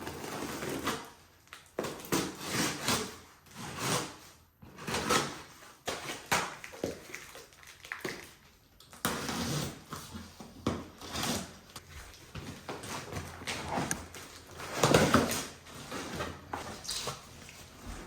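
Irregular handling noises of objects being moved about: short knocks, scrapes and rustles, with a louder bump about fifteen seconds in.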